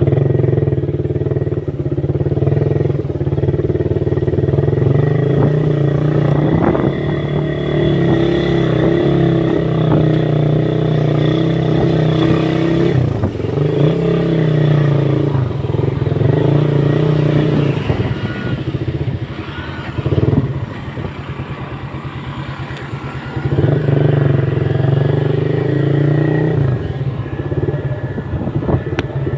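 Motorcycle engine running at steady cruising revs. The revs drop briefly a little before halfway, then fall away for several seconds past the middle before climbing again as the bike pulls off.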